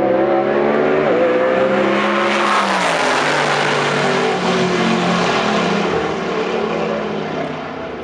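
V8 drag racing car going past the finish line at full throttle, about 185 mph. Its engine note climbs, drops in pitch as it passes about three seconds in, then fades away down the track.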